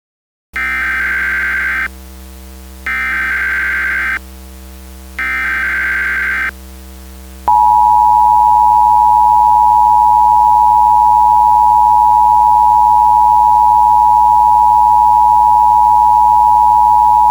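Emergency Alert System tones. Three bursts of SAME header data come first, a harsh buzzy chirping about a second long each with short gaps between them. About seven seconds in, the two-tone EAS attention signal starts and holds steady for about ten seconds. A low electrical hum runs underneath.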